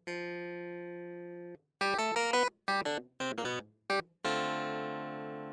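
Instrumental background music: a long held chord, a quick run of short notes, then another long chord slowly fading.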